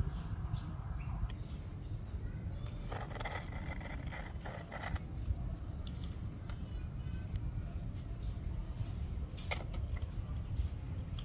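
A series of short high chirps in the middle few seconds, typical of small birds, over a steady low rumble, with a few light clicks.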